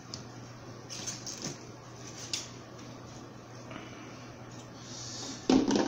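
Steak being cut with a knife and fork on a ceramic plate: a few soft scrapes and clicks of the cutlery, then a sharper knock near the end, over a steady low background hum.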